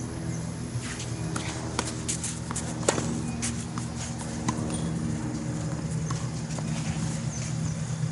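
Tennis rally: a series of sharp knocks from a tennis ball being struck by rackets and bouncing on the court, the loudest about three seconds in, over a steady low hum.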